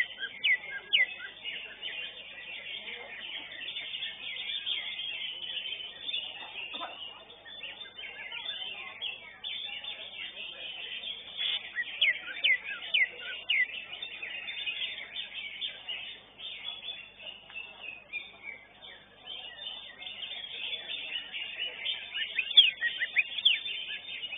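Greater green leafbirds (cucak hijau) singing in contest, a dense tangle of loud chirps and chatter. Bursts of quick, sharp downward-sweeping whistles come near the start, in the middle and near the end.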